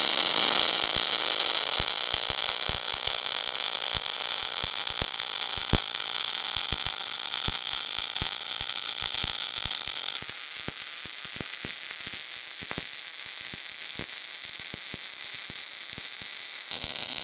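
MIG welding arc burning with the machine set too hot: a steady hissing sizzle full of crackles and pops, cutting off suddenly at the end.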